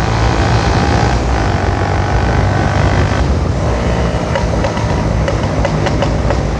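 Bajaj Avenger motorcycle's single-cylinder engine running steadily under way, with wind rushing over the microphone. A few faint clicks come in the second half.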